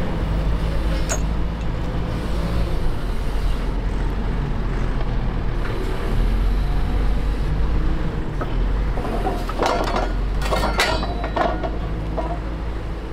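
Heavy diesel engine of a Caterpillar wheel loader running steadily with a deep hum. A few short, sharp clattering sounds come about nine to eleven seconds in.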